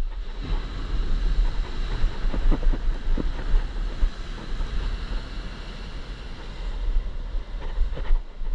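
Wind buffeting the microphone in gusts over the steady wash of ocean surf.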